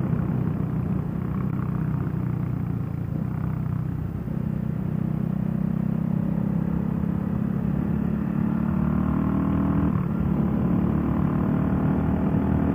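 CCM Spitfire's single-cylinder engine running at road speed under a rider, heard from the handlebars. Its note climbs steadily and then drops back sharply about ten seconds in, as the revs rise and fall.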